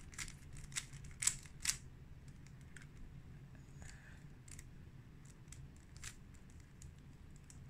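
Plastic clicks of a 3x3 Rubik's cube's layers being turned by hand: four sharper clicks in the first two seconds, then fainter, scattered ones.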